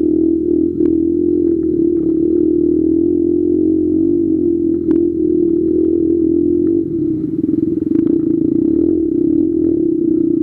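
Dirt motorcycle engine running steadily as the bike rides a rough dirt trail, with a few sharp clicks and knocks from the bike over the ground. About seven seconds in, the engine note turns rougher and more uneven.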